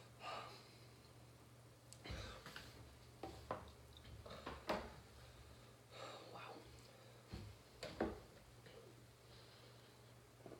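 Quiet, scattered short breaths and small movement sounds from a man sitting at a table while he suffers the burn of a Carolina Reaper pepper.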